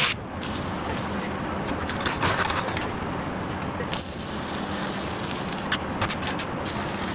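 MIG welder in use on steel: the arc sputters and crackles in short runs over a steady low electrical hum.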